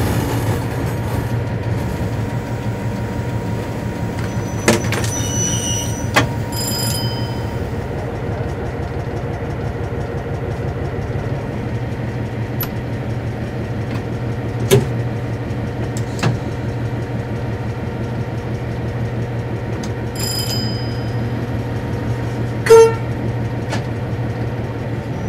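General Motors diesel engine of an ex-CIE A class locomotive running steadily at low power, heard from inside the cab as it moves slowly. A few short clicks and knocks sound over the engine, the loudest a brief sharp one near the end.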